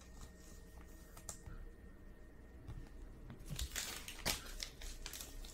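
A few faint handling clicks, then from about three and a half seconds in, a short run of crinkling from a trading-card pack wrapper being handled.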